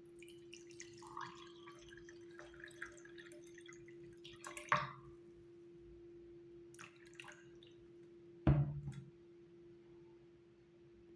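Kitchen handling sounds from a cup and utensils on a counter: scattered small clicks and taps, a sharp knock about five seconds in and a louder thump about eight and a half seconds in, over a steady low hum.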